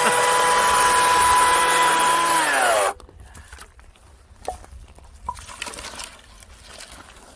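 Electric chainsaw running at full speed with a steady high whine while cutting firewood, then released about three seconds in, its pitch falling as the motor winds down and stops. Afterwards only a few faint knocks of wood being handled.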